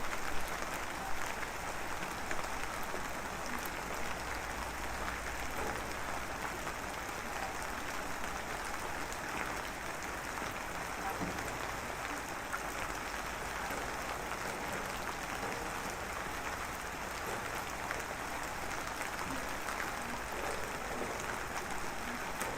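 Steady rain falling at night, an even hiss with scattered drop ticks.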